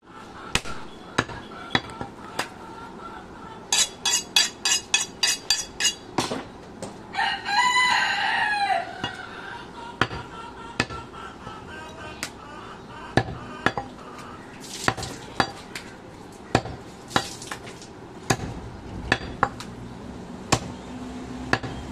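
Heavy cleaver chopping goat meat and bone on a wooden log chopping block: separate single strikes every second or so, with a quick run of about ten chops around four to six seconds in. A rooster crows once, loudly and for about two seconds, near the middle.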